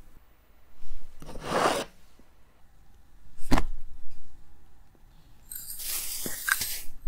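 Dry ingredients being added to a glass dish of flour: a soft rustle about a second in, then a sharp knock of a container set down. Near the end, granulated sugar poured from a small glass cup onto the flour makes a hissing trickle with a couple of light clinks.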